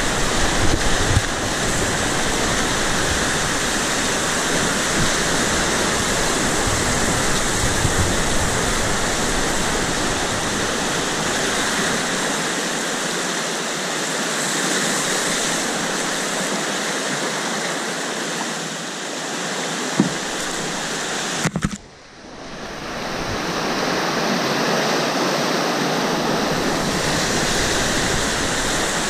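Rushing, churning whitewater around an open canoe, a steady loud roar of aerated water heard close to the hull. About three-quarters of the way through the sound drops off sharply and comes back duller for a few seconds before it is full again.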